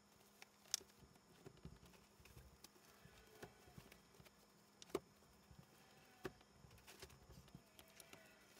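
Near silence: room tone with a low steady hum and a few faint sharp clicks, the clearest about five seconds in.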